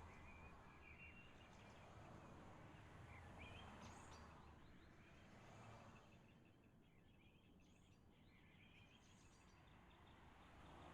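Near silence: faint outdoor ambience with a few short, high bird chirps scattered through.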